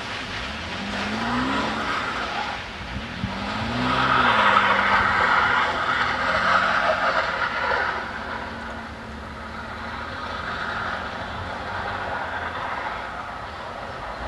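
1982 Mercedes-Benz 280SE's straight-six engine revving up and dropping back twice while the car slides sideways on wet ice, with tyres hissing and skidding over the icy surface, loudest a few seconds in.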